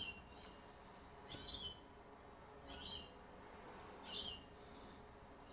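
A bird's short, rough chirp, repeated about four times at slightly uneven intervals of roughly a second and a half, over a faint background hum.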